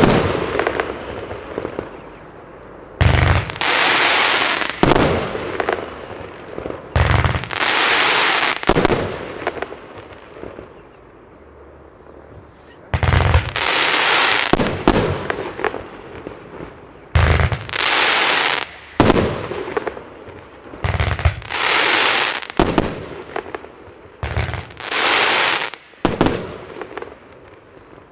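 Evolution Fireworks 'The Branco' W-fan compound firework battery firing volley after volley of shots. Each volley is a quick string of launches and bursts lasting a second or two and opening with a low thump. The volleys come every few seconds, with a longer lull about a third of the way through.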